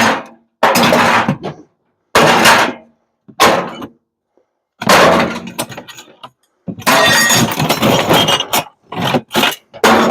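Scrap parts from a microwave being torn out and dropped, crashing and clattering in a series of loud bursts, several of them a second or more long, then a quick run of short clanks near the end.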